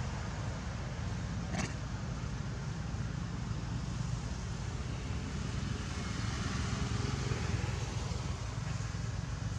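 Steady low outdoor rumble, background noise with no clear source, broken by one short sharp sound about a second and a half in.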